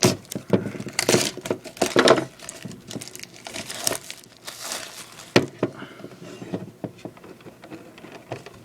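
Plastic packaging crinkling and rustling as the contents of a trading-card tin are handled, with scattered light clicks and knocks.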